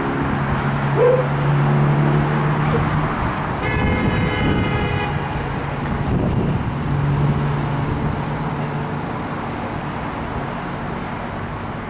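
Steady city traffic noise with a low hum, and a horn sounding for about a second and a half about four seconds in.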